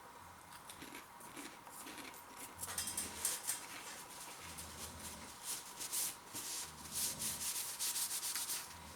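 Irregular rustling and crackling of crisps and their packets being handled, getting busier about two and a half seconds in.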